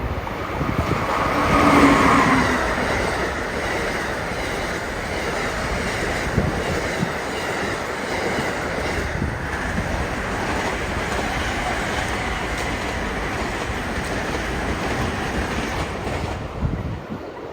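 Electric passenger train passing at speed, wheels clicking over rail joints; loudest about two seconds in as the front goes by, then a steady rush of cars that falls away near the end.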